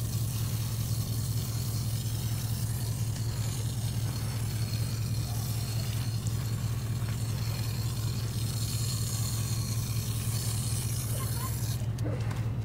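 A steady low motor hum, with a hiss of spray from a garden hose nozzle over it that cuts off near the end.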